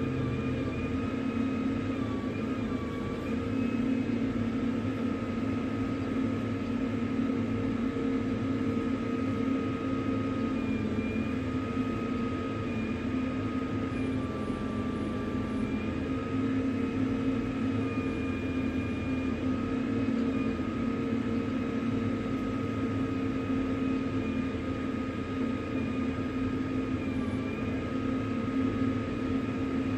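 A steady mechanical hum with several held tones that waver slightly in pitch.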